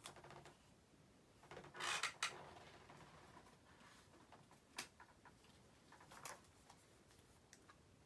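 Faint sounds of writing at a desk: a short scratchy rustle of a pen and hand on a textbook's paper page about two seconds in, then a few scattered light ticks and taps of the pen.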